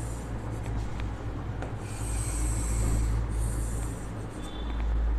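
Chalk scraping along a chalkboard as straight axis lines are drawn, with one longer stroke about two seconds in, over a steady low hum.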